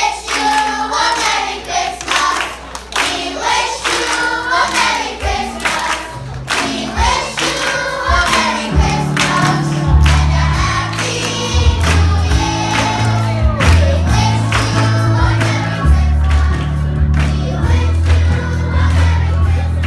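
Children's choir singing with hand claps. About eight seconds in, a low bass line joins under the voices.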